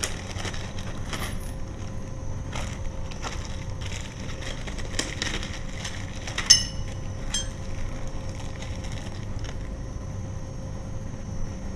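Small clear plastic zip-lock bags of lock hardware crinkling in the hands, with scattered light clicks of the small metal parts inside. One sharp, ringing metallic clink comes about six and a half seconds in.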